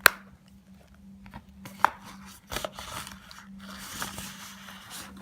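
Small items being handled: several sharp knocks, then a stretch of rustling about three and a half seconds in, over a faint steady hum.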